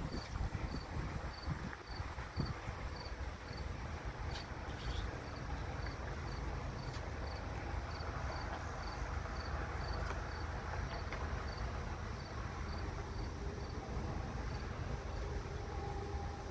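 An insect chirping steadily and evenly, short high-pitched chirps about two to three a second, over a low steady rumble.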